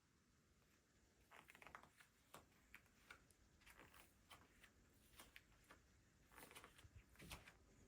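Faint, irregular light clicks and short rustles of packaging being handled, the sounds coming in small clusters.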